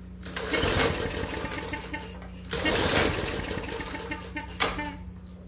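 Small gasoline engine being pull-started on its recoil cord: two long pulls that crank it over and a short third one near the end, without it catching and running.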